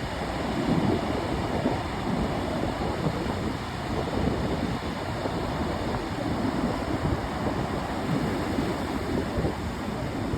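Ocean surf washing in a steady, continuous rush, with wind buffeting the microphone.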